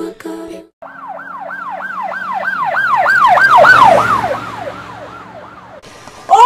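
Emergency vehicle siren in a fast yelp, each wail falling in pitch, about three a second; it grows louder to a peak around the middle and then fades, as if passing by.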